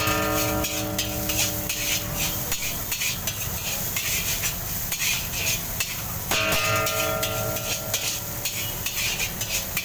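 Metal spatula scraping and stirring fried rice across a large iron wok, in quick repeated strokes over the sizzle of the hot pan. Twice, at the start and again about six seconds in, a sharp metal strike sets the wok ringing for a second or two.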